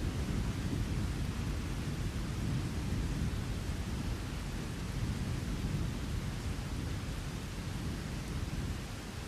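Low rolling thunder over steady rain, the thunder fading a little near the end.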